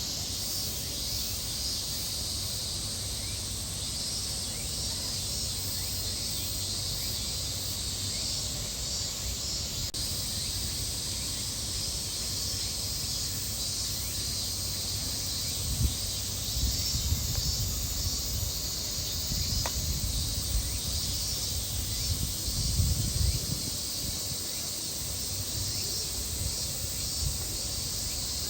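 Cicadas droning steadily in a high-pitched, pulsing hiss. Bouts of low rumble on the microphone come past the middle.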